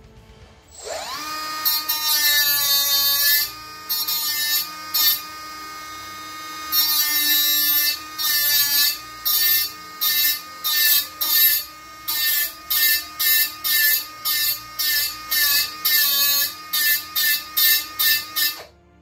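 Small cordless rotary tool spinning up into a high whine, held running for a few seconds, then triggered on and off in short bursts, about two a second toward the end, as it grinds glue buildup off a wooden wing rib so a part fits flush.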